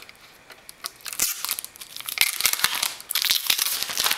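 Crinkly rustling and a quick run of small clicks and scrapes as an ATI Radeon HD 5870 graphics card is handled and guided into a Mac Pro's PCIe bay. The sound is busiest from about a second in until near the end.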